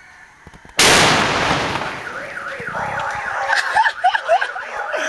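A large 'Goodbye Philippines' firecracker goes off about a second in with a single loud blast that echoes down the street. A couple of seconds later a car alarm, set off by the blast, starts warbling up and down.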